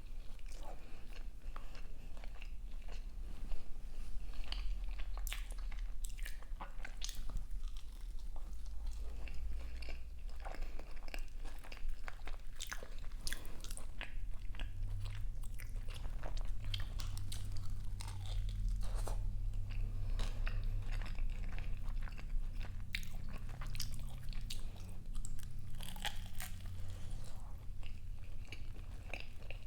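A person chewing a crunchy bite of pastry close to the microphone: irregular crunches and wet mouth clicks as the bite is worked.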